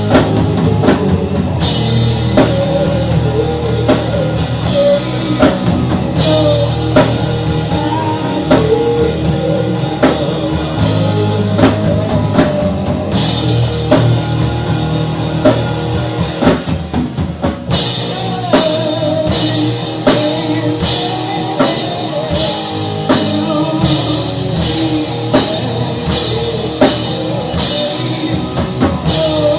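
Rock music with a drum kit and guitar playing steadily. The top end drops out briefly a few times.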